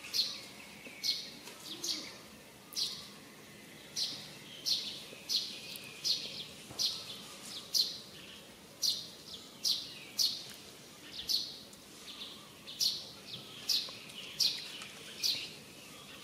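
A bird giving short, sharp, high-pitched chirps over and over, one to two a second at a fairly even pace.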